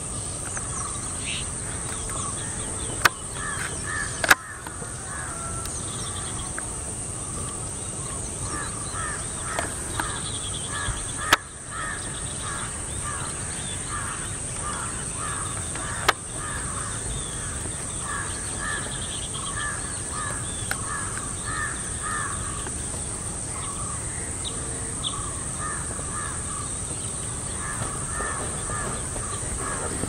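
Birds calling: a long run of short, repeated notes that grows busier from about a third of the way in, over a steady high-pitched hiss. A few sharp knocks stand out as the loudest moments.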